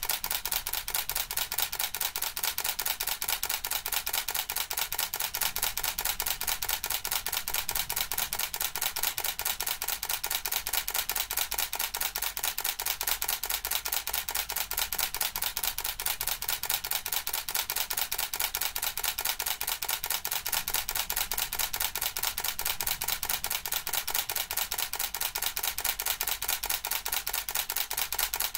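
Camera shutter clicking in a rapid, perfectly even run, several clicks a second without a break, as in continuous burst shooting.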